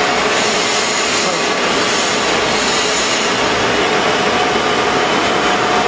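Steady loud machinery noise with a faint steady whine running through it.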